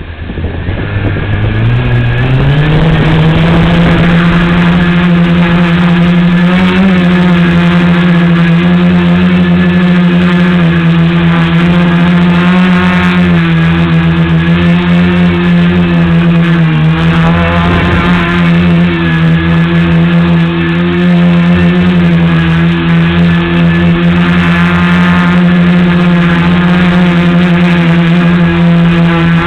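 Tricopter's three motors and propellers spinning up, the pitch rising over the first two seconds, then a steady, loud buzzing whine with small rises and dips in pitch as the throttle changes in flight.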